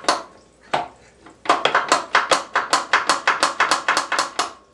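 Metal-on-metal knocking from a Vernon lathe's lead screw being worked back and forth by hand in its cone gearbox: two separate knocks, then about a second and a half in a quick even run of about six clacks a second. He suspects it means a gear in the cone is hitting the side of another gear and holding the lead screw.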